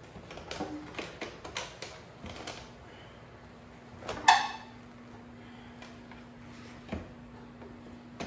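Metal clicks and clinks as a dirt bike's rear wheel is slid forward in the swingarm and the drive chain is worked back on. There is one loud, ringing metal clank about four seconds in and a single knock near the end. A faint steady hum sets in after about two seconds.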